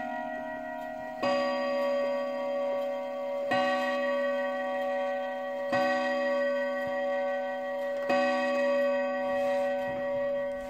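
English dual-chime mantel clock striking the hour: four evenly spaced strokes on the same note, about two seconds apart, each left to ring on, with the previous, higher chime note still dying away at the start. The movement's tick is faint beneath.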